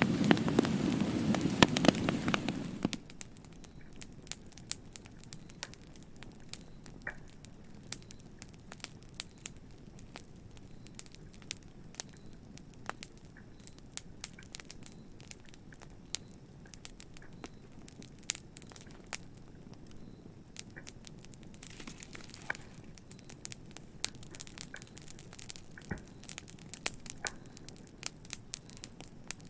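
Wood fire crackling, with many small sharp pops and snaps over a soft steady hiss. For the first three seconds a louder, dense rushing noise sits under the crackle and then cuts off abruptly.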